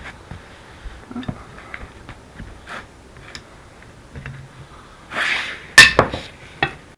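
Scattered knocks and clanks as the parts of a hydraulic backhoe swing cylinder are handled in a workshop. About five seconds in there is a short scrape, then the loudest sound, a single sharp strike, followed by a couple of lighter knocks.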